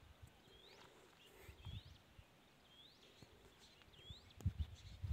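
A bird calling: a short, high note sweeping upward, repeated about once a second. Low irregular rumbles and thumps run underneath and get heavier near the end.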